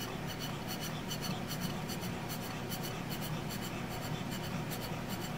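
Breath blown through a straw onto wet acrylic paint: a steady soft hiss with a fine, irregular crackle of small ticks.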